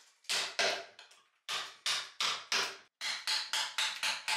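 A woodcarver's hammer strikes the end of a carving chisel, driving it into a wooden statue. The strikes come in three runs, with short pauses between them: first two, then four, then about six, each a sharp crack with a brief ring.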